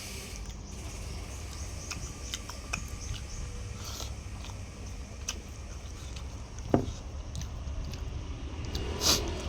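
Mouth sounds of someone eating chicken: biting, chewing and small wet clicks and smacks, over a steady low rumble. There is one sharper short sound about seven seconds in.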